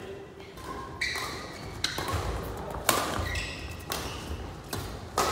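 Badminton rally: rackets strike the shuttlecock with sharp pops, four hits about a second apart, while sneakers squeak briefly on the court floor.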